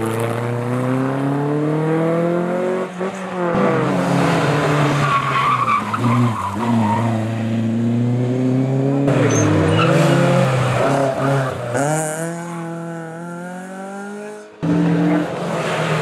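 Historic rally cars at speed, one after another: engines revving hard and falling back through gear changes, with tyre squeal as they slide through corners. The sound breaks off abruptly twice as one car gives way to the next.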